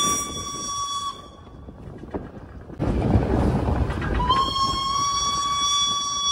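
Steam whistle of steam locomotive B 5112 blowing two long blasts of one steady tone. The first blast ends about a second in. The second starts just past the middle and is still sounding at the end, with the train's running noise in between.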